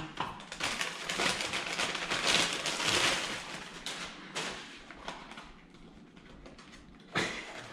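Paper takeout bag rustling and crinkling as food is pulled out of it, then a cardboard food box being handled and opened. The rustling is loudest in the first few seconds and dies down, with a short sharp knock near the end.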